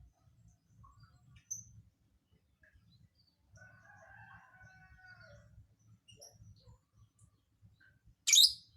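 A faint drawn-out crowing call lasting about two seconds midway, then a loud, sharp, single shriek near the end from a lovebird.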